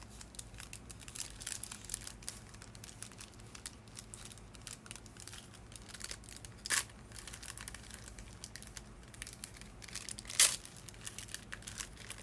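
Small striped paper package being handled and unfolded: crinkling and rustling paper throughout, with two louder, sharper crackles, about seven and ten and a half seconds in.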